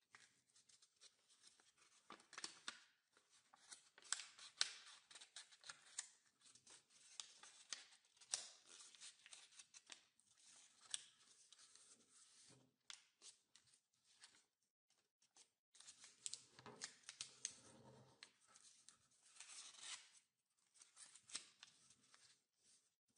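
Faint, crisp rustling and crackling of a sheet of origami paper being folded by hand, with short sharp clicks as fingers press and run along the creases. The sounds come in irregular bursts, with a brief lull a little past the middle.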